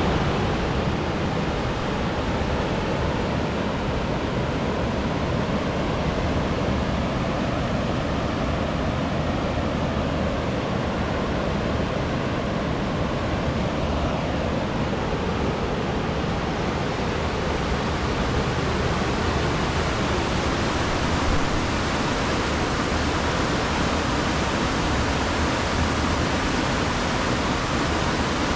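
Fast mountain river rushing in a steady, loud roar of white water.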